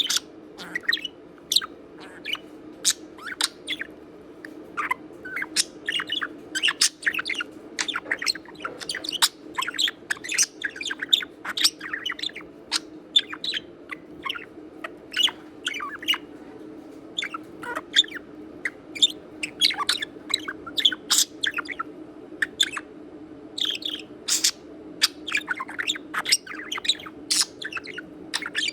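Budgerigar chattering: a dense, continuous run of quick, high chirps and squeaks over a low steady hum.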